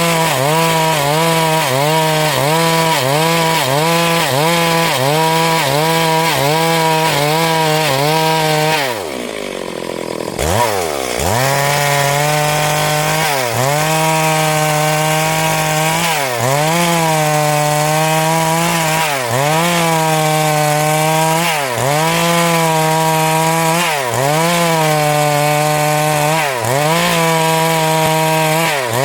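Stihl MS382 two-stroke chainsaw running at high revs while ripping a hardwood log lengthwise. Its pitch dips rhythmically as the cut loads the engine, at first about twice a second and later every few seconds. About a third of the way in, the throttle comes off and the engine falls away briefly, then revs back up.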